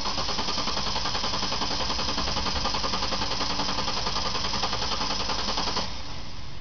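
A car's starter motor cranking the stalled engine in a fast, even chatter without it catching. It cuts off suddenly about six seconds in.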